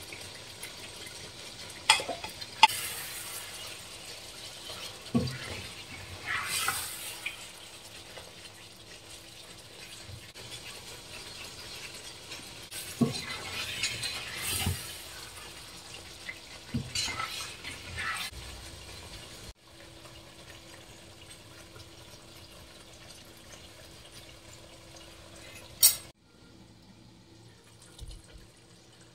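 A spatula stirring and scraping thick beef curry in a nonstick pot, in short swishes with several sharp clicks of the utensil against the pot.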